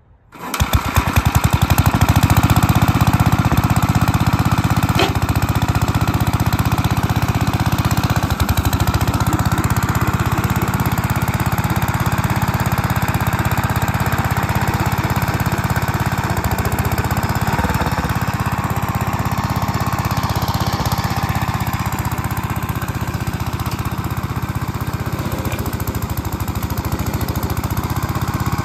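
A circa-1970 Gravely walk-behind tractor with a brush-hog attachment: its engine runs steadily at a loud, even drone while the two stacked rotary blades spin as it is pushed into brush. The sound comes in abruptly at the very start.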